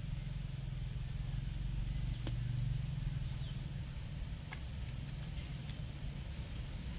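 A few faint, light clicks of small carburettor parts being handled as the tiny metering spring is seated, over a steady low hum.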